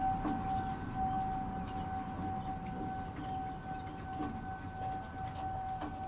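Federal Signal 2001 outdoor warning siren sounding a steady single tone for a scheduled siren test; its strength swells and fades slowly as the rotating horn sweeps around.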